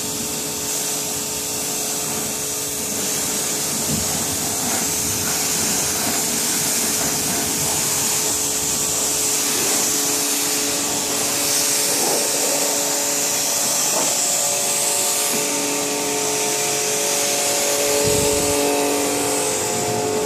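Kärcher pressure washer running: a steady hiss of the high-pressure water jet striking a car's bodywork over the pump motor's even hum.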